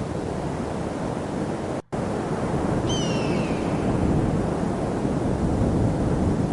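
Steady rushing outdoor noise, heaviest in the low end, briefly cut out about two seconds in. A short falling whistle sounds about three seconds in.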